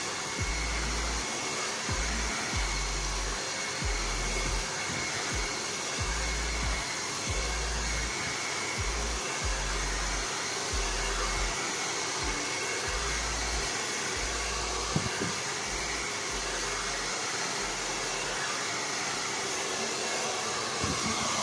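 Handheld blow dryer running steadily on natural hair: a constant airy hiss with a faint high whine.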